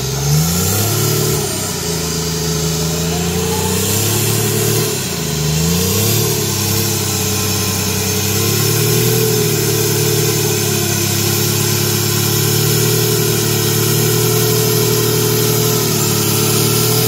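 Off-road 4x4's engine revving up and down twice in the first six seconds, then running steadily at raised revs as the vehicle works up a steep slope on its winch cable.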